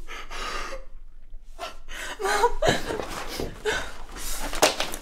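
A young woman sobbing in distress: sharp gasping breaths broken by short, wavering cries.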